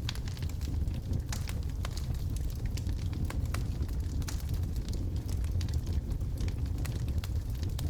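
Logs burning in a fireplace, with frequent irregular sharp crackles and pops over a steady low rumble.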